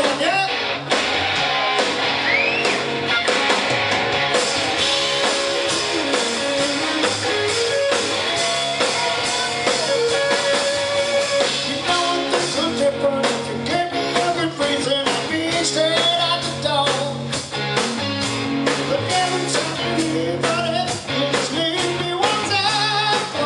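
Live rock band playing: electric guitars, drums and a lead singer, loud and unbroken, recorded from among the crowd.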